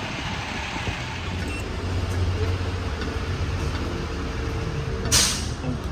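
A motor vehicle's low engine hum that swells in the middle, with a short burst of hissing noise about five seconds in.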